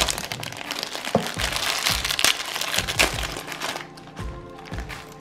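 Clear plastic bags of toy bricks crinkling as they are handled, over background music with a steady beat. The crinkling stops about four seconds in, leaving the music.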